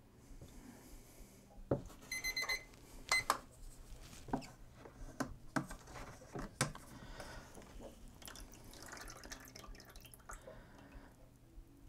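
Black-and-white photographic print being processed in darkroom trays: liquid chemistry sloshing and dripping, with sharp clicks and knocks of tongs and trays, and a brief high beeping about two seconds in.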